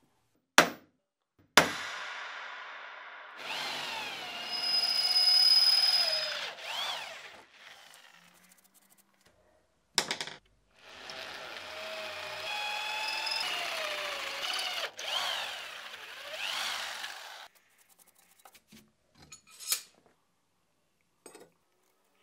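A power tool working steel in two long runs, each with a wavering squeal over the cutting noise. Sharp clicks come before each run.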